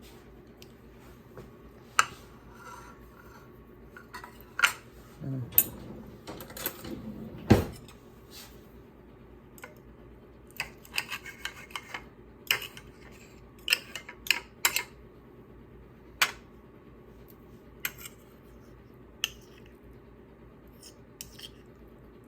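Cutlery clinking and scraping against a plate or baking dish while eating, in scattered sharp clicks with some duller rubbing about a quarter of the way in.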